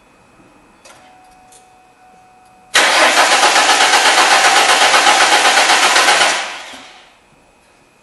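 Car engine cranked over by its starter for about three and a half seconds, with a fast, even pulsing, then winding down; it cranks but does not catch, as the engine is getting no fuel pressure.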